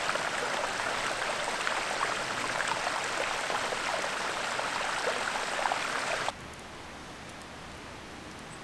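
Shallow rocky stream babbling over stones in a steady splashing rush. It cuts off suddenly about six seconds in, leaving a fainter steady hiss.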